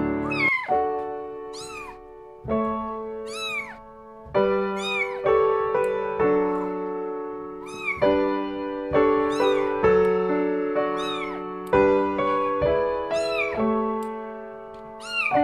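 Kitten mewing over and over, high rising-and-falling calls about one every second or so, over background piano music.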